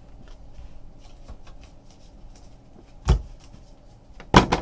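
Trading cards being handled, with light rustling and small clicks, and two knocks, one about three seconds in and one near the end.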